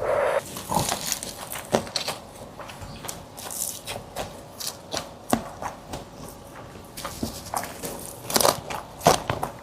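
Close-miked eating: chewing with irregular mouth clicks and smacks.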